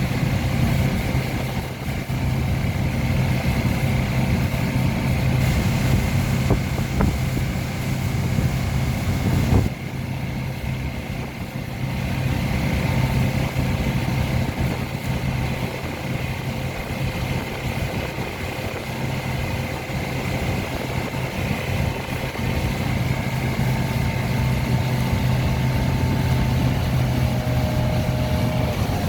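Tow boat's engine running steadily under way, a continuous drone that dips briefly about ten seconds in.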